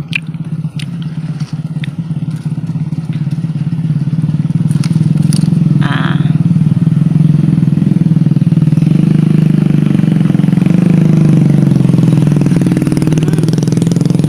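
A small engine running steadily, with a fast low pulse. It grows louder over the first several seconds and then holds. A few light clicks come near the start.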